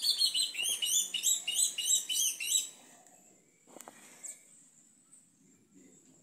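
Yellow-legged thrush (sabiá-preto) singing a fast run of high repeated notes, about four a second, that stops about three seconds in. A single knock follows about a second later.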